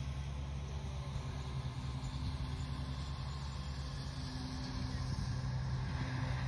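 Steady low engine hum that holds at one pitch, with a faint hiss of open-air noise above it.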